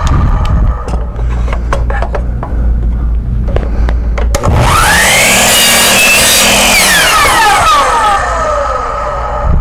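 Compound miter saw: light clicks and knocks as the wooden strip is slid along against the fence, then about halfway through the motor spins up with a rising whine, runs steadily for about two seconds through a crosscut, and winds down with a falling whine. A steady low hum runs underneath.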